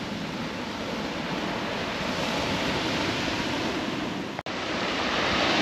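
Surf breaking on a shingle beach, a steady rushing wash, with wind buffeting the microphone. The sound cuts out for an instant about four and a half seconds in and comes back a little louder.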